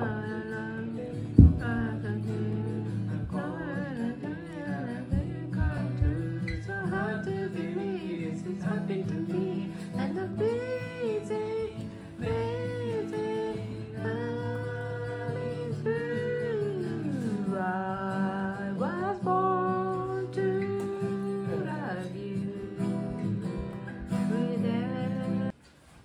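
Acoustic guitar strummed as accompaniment while voices sing along, karaoke-style, with a sharp knock about a second in. The guitar and singing stop abruptly near the end.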